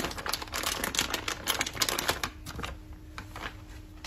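Wild greens and mushrooms being tossed and mixed by hand in a stainless steel bowl: a quick run of wet clicks and rustles, busiest in the first two and a half seconds and thinning toward the end.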